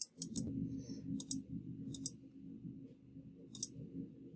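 Computer mouse clicking: several short, sharp clicks, some in quick pairs, spaced irregularly, over a low steady background hum.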